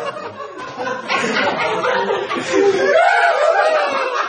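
A group of men laughing hard together, overlapping chuckles and bursts of laughter.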